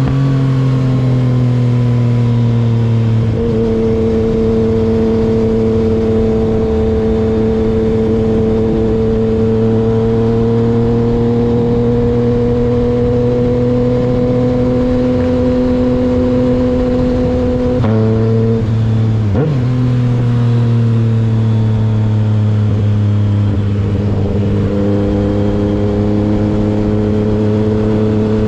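Yamaha MT-09 three-cylinder engine running under load at steady, slowly rising revs, with a pitch dip at the start and two quick breaks about two-thirds of the way through where the pitch steps, typical of quickshifter gear changes.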